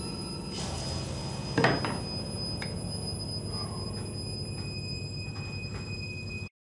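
A dark, steady drone of held tones from a film underscore. About a second and a half in comes one sudden loud hit. The drone cuts off abruptly near the end.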